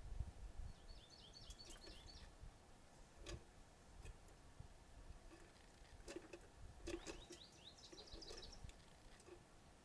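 Faint songbird chirping: a quick run of short, high notes about a second in and another near seven seconds, with a few faint clicks in between.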